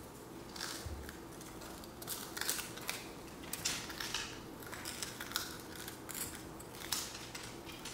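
Irregular crisp crunches of a Shiba Inu and a baby biting and chewing strawberry wafers.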